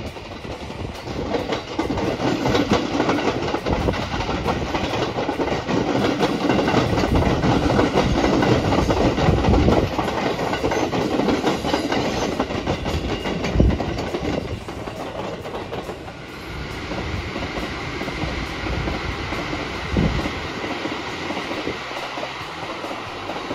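Electric passenger express train running past, its wheels clattering rhythmically over the rail joints. The sound builds to a peak and then eases off, with a couple of sharper thumps in the later part.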